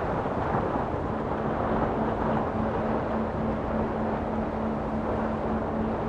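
A 4x4 truck driving a snowy trail in rising wind: a steady rushing rumble, with a steady drone joining about a second in.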